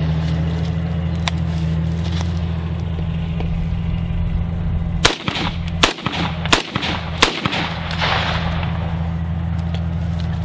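Beretta ARX-100 semi-automatic rifle firing a short string of about four shots, roughly two-thirds of a second apart, starting about five seconds in.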